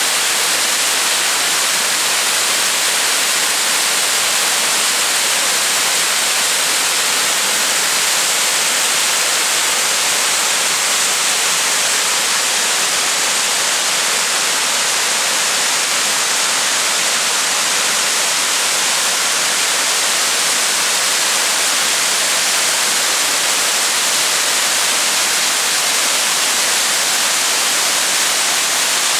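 Waterfall: falling water making a steady, unbroken rushing hiss.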